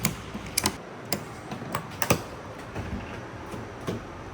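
Ratchet strap being tightened, its ratchet handle and pawl giving a series of sharp, irregularly spaced clicks.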